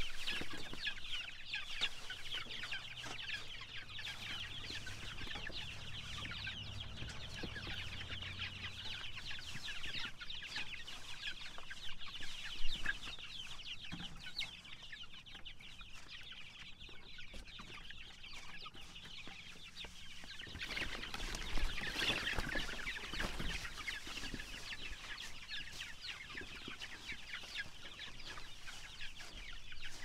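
A flock of young laying pullets calling, a constant chatter of many overlapping short high calls. A few knocks and rustles come in around the middle and again later.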